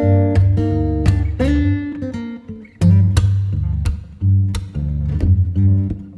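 Background music led by plucked guitar, with a steady bass line.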